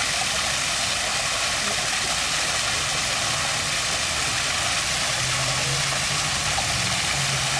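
Water stream rushing steadily, with a faint low hum coming in about halfway through.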